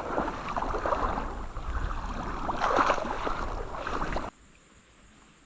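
Water splashing and sloshing, with a low rumble of wind or handling on the microphone; it stops abruptly about four seconds in.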